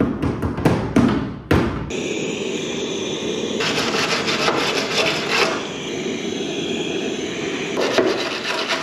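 A few quick knocks, then from about two seconds in a steady abrasive scouring of a tool cleaning rust off the car's sheet-metal bodywork.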